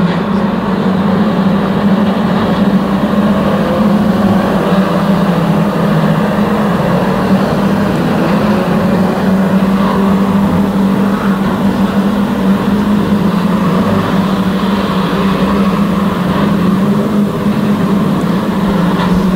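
A pack of saloon stock cars racing, their engines blending into one steady drone with no single car standing out and no clear impacts.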